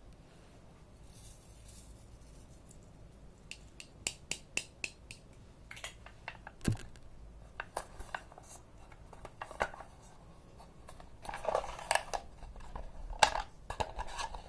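Close handling noises: a run of sharp, irregular clicks and snips, then short scraping and rustling stretches near the end.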